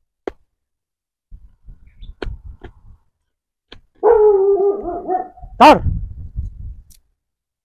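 A dog gives a drawn-out, wavering whine lasting about a second and a half, then a single loud bark. Before it, a few faint clicks and scrapes of a knife shaving a wooden stick.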